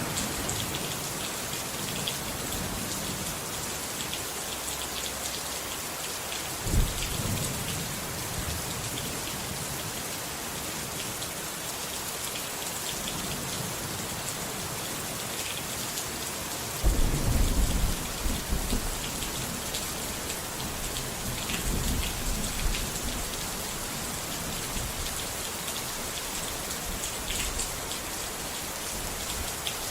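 Steady heavy rain with rolls of thunder: a short rumble about seven seconds in and a longer, louder one a little past halfway, then a fainter one soon after.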